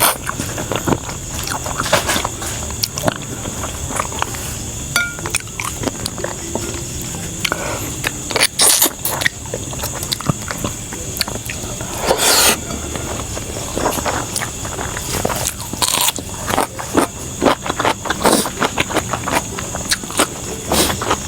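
Close-miked eating: chewing and lip smacking with irregular clicks and a few louder crunchy strokes.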